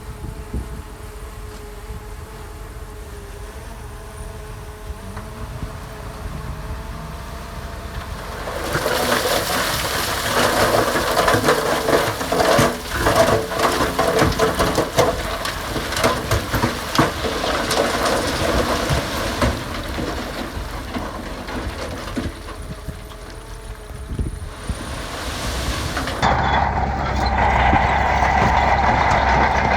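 Heavy diesel earthmoving machinery running steadily. Then, for about ten seconds, loose gravel and stone clatter and slide as the load is pushed or dumped, a dense rattle of many small impacts. Near the end the sound cuts to a louder running engine.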